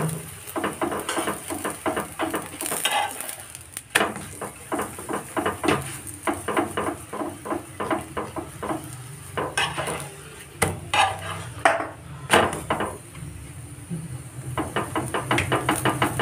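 Steel spoon scraping and tapping on an iron tawa in quick runs of strokes with short pauses, working fat over a methi paratha as it fries, with a light sizzle underneath.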